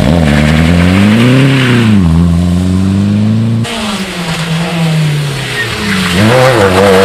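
Rally car engines revving hard, the pitch climbing and dropping again and again through gear changes. About three and a half seconds in the sound cuts abruptly to another car, whose revs also rise and fall with each shift.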